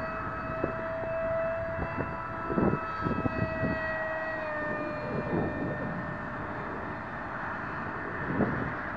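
Electric motor and propeller of a small RC plane whining steadily in flight, the pitch dropping slightly about halfway through. A few short bumps and rumbles on the microphone.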